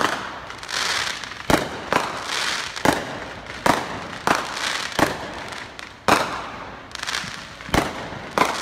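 Fireworks going off in quick succession: about ten sharp bangs, one every half second to second, each followed by a fading crackle as the stars burst.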